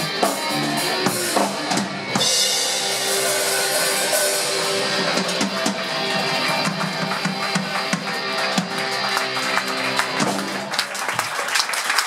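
Live rock band playing: electric guitars, bass guitar and drum kit, with cymbals washing over the music from about two seconds in. The playing stops near the end and clapping begins.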